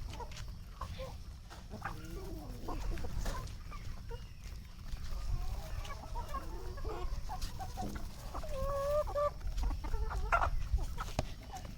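A flock of desi (country) chickens clucking and calling, several birds at once, with short calls that grow busier in the second half.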